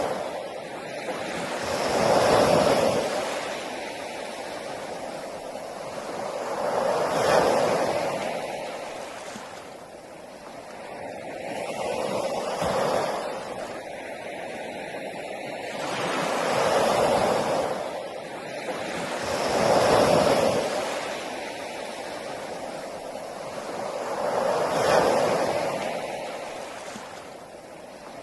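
Sea waves breaking on a beach, each swelling up and washing back in slow surges about every four to five seconds.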